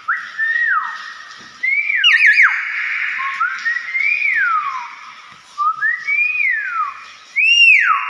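Hill myna giving loud whistles: about five whistled notes, each sliding up and then swooping down in pitch, the loudest near the end.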